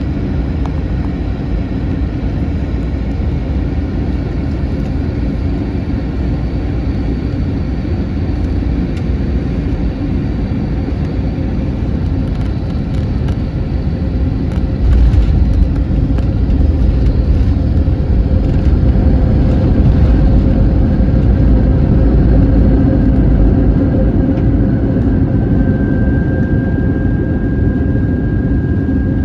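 Airbus A321 cabin rumble during landing. About halfway through, a sudden louder low rumble starts and holds for several seconds as the jet touches down and slows on the runway, then eases. A steady high whine comes in near the end.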